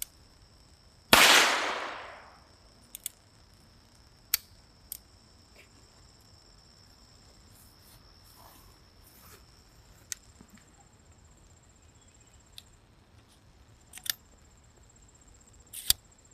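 A single shot from a Ruger .22 revolver about a second in, a sharp crack that trails off over a second or so. Then several faint clicks, with a faint steady high-pitched hum in the background.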